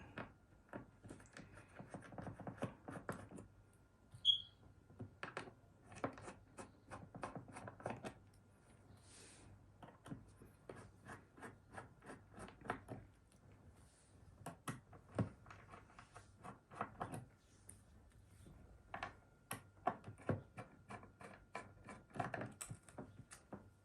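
Small screwdriver working the cover screws out of a hard drive: irregular light metal clicks, scrapes and taps, with a few louder knocks as screws and tools are set down.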